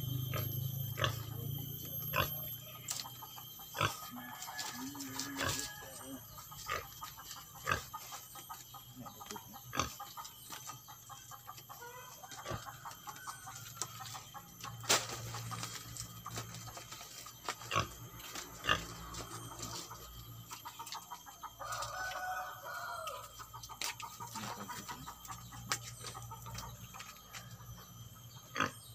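Scattered irregular clicks and knocks of a woven coconut-leaf nest basket being handled and tied onto a wooden coop post, with a few faint animal calls twice in the background.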